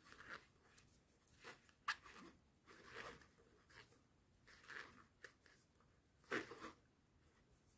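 Faint hand-knitting sounds: wooden double-pointed needles and wool sock yarn giving small irregular scrapes, rustles and light ticks as stitches are worked, the loudest scrape about six seconds in.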